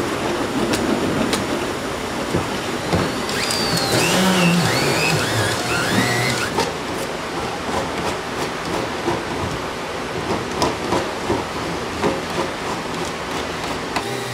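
Spin welding polyethylene: a spinning plastic filler rod is pressed against the polyethylene water tank so that friction heats and melts it into the surface. It makes a steady, rough, crackling scrub.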